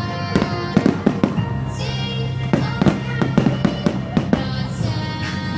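Fireworks going off in quick runs of sharp bangs and crackles, over music playing.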